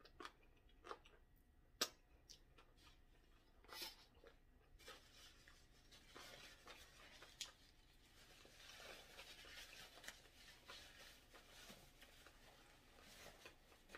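Faint close-up eating sounds: a few sharp mouth clicks and smacks while chewing, then soft rustling of a paper napkin as the mouth and fingers are wiped.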